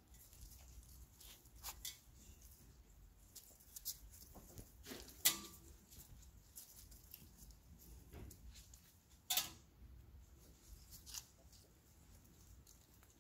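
Miniature bull terrier puppies moving about on brick paving: soft, scattered pattering and scuffing of small paws and claws, with two sharper clicks about five and nine seconds in.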